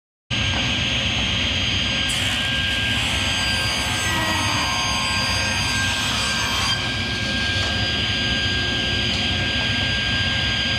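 Electric power saw running steadily while cutting oak filler strips, its whine shifting slightly a couple of times.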